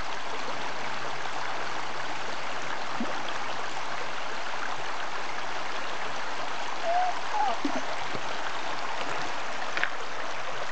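Shallow creek water running steadily over a stony bed.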